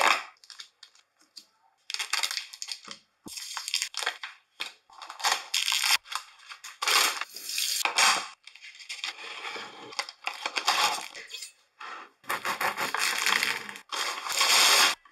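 Food packaging being unwrapped and handled: foil and a cardboard box of soft cheese being torn open, a plastic berry punnet crackling, and a paper bread bag rustling. The sound comes in a series of crinkling bursts a second or two long, with short pauses and a couple of light knocks between them.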